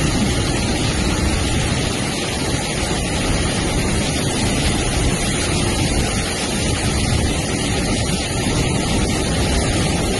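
Freight train of open wagons running through floodwater that covers the track, its wheels throwing up a steady, loud rush of spray.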